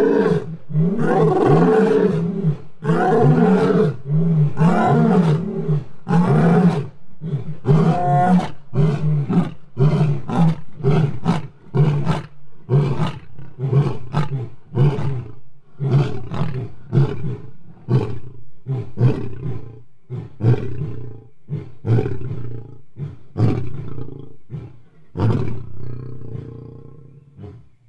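Lions giving a territorial roaring bout. It opens with several long, deep roars, then runs into a long series of short grunts, a little more than one a second, that grow weaker and fade out near the end.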